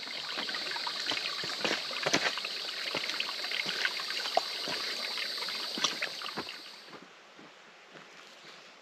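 Shallow creek trickling over rocks, with footsteps clicking and scuffing on the creek stones. About seven seconds in, the water sound falls away and only faint footsteps on a dirt trail remain.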